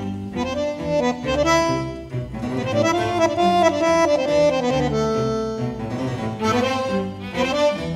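Bandoneon playing a melodic passage of held notes and chords over lower sustained bass notes.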